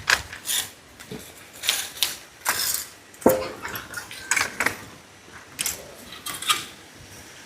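Irregular knocks and scrapes of brick-laying work: a steel trowel tapping and scraping on bricks and mortar. Some strikes ring briefly.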